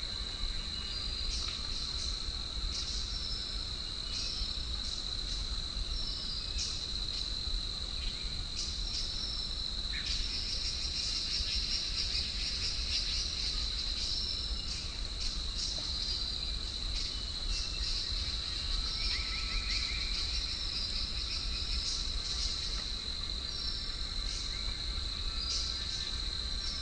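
Forest insects keep up a steady high-pitched buzzing drone, with short high chirps repeating every second or two above it and a brief trill about two-thirds of the way through. A low rumble of wind sits underneath.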